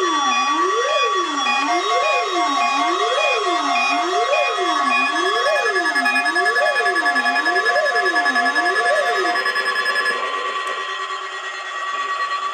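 Several NOAA weather radios alerting together for the weekly test. One sounds a rising-and-falling siren about once a second, over steady alarm tones and rapidly repeating beeps. The siren and beeps stop about nine and a half seconds in, and one steady tone carries on a little longer.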